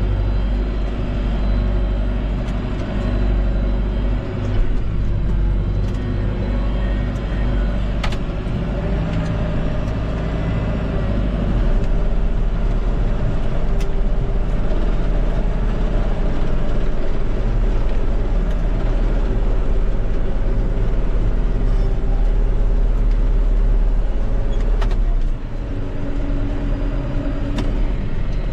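John Deere 5100M tractor's diesel engine running steadily, with a few sharp clicks over it; its note drops near the end.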